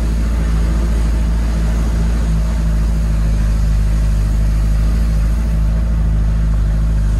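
Vehicle engine running steadily on the move, heard from inside the cab as an even, low hum with road noise over it.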